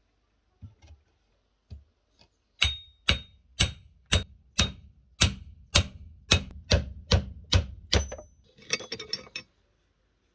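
Hammer blows on the old axe, about a dozen steady strikes at roughly two a second, a few of them ringing briefly, followed by a short rattle near the end.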